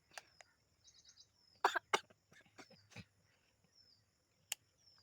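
A person sneezing in several short, sudden bursts, the loudest two coming close together about one and a half to two seconds in, brought on by something pushed into the nose. Birds chirp faintly in the background.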